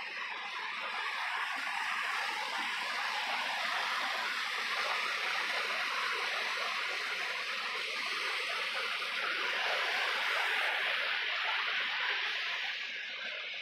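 Steady rushing of a river's flowing water and waterfalls, running under and between shelves of ice; it eases a little near the end.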